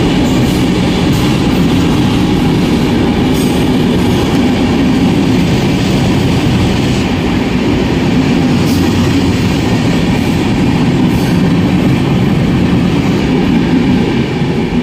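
Indian Railways passenger train rolling past a platform: a steady, loud rumble of coaches and wheels on the rails, with a few faint clicks from the wheels.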